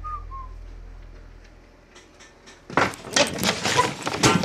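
Camera being picked up and handled: a dense run of loud knocks, clicks and rustles on the microphone begins a little under three seconds in. Before it, a low hum fades away.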